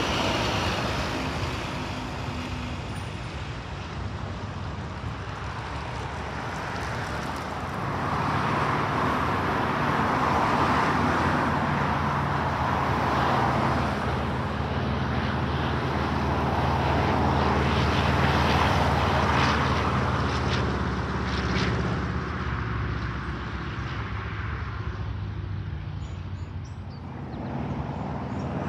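A school bus drives past close by at the start. Then a single-engine propeller aircraft flies past low, its piston engine drone building from about eight seconds in, holding for over ten seconds, and fading near the end.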